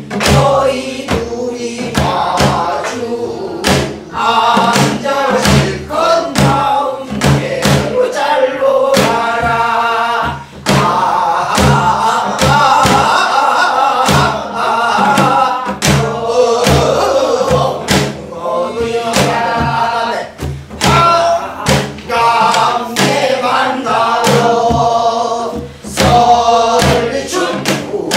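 A group of men and women singing a Namdo folk song together, in the style of Korean minyo. They are accompanied by sharp, regular strokes on a buk, a rope-tensioned Korean barrel drum.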